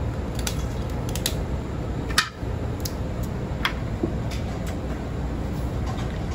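Kitchen shears snipping and cracking through cooked king crab leg shell: a series of sharp clicks, the loudest about two seconds in, over a steady low hum.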